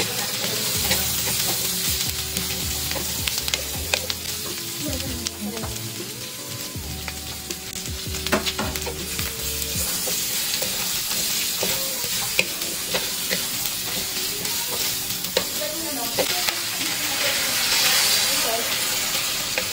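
Green beans and pumpkin sizzling in a metal wok, stirred with a wooden spatula that scrapes and clicks against the pan. Near the end the sizzle swells as a little coconut milk is poured in.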